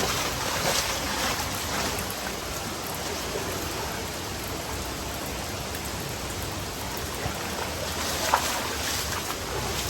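Tukad Cepung waterfall: falling water making a steady rushing hiss, with a short sharp click about eight seconds in.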